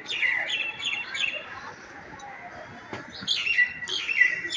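Small birds chirping in short clusters of quick high notes, one group in the first second or so and another near the end.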